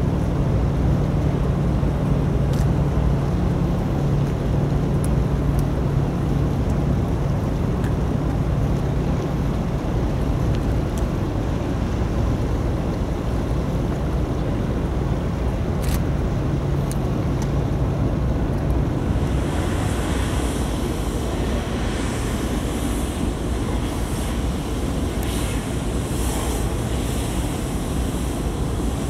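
Steady low engine drone of a boat under way, with water washing along the hull and wind buffeting the microphone. About two-thirds of the way through the hum fades and a hiss of splashing water grows louder.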